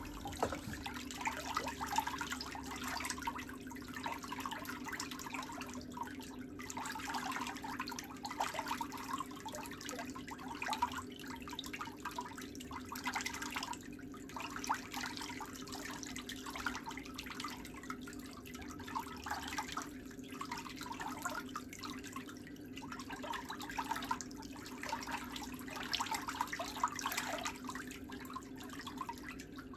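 Steel nail nippers and a thin nail tool working on a thick, yellowed big toenail: an irregular run of small clicks and scraping crackles with a few short pauses, over a steady low hum.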